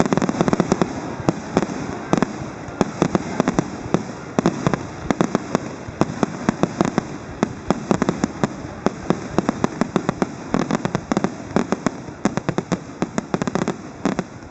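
Aerial fireworks going off in rapid succession: dense, overlapping sharp bangs and crackles over a continuous low rumble.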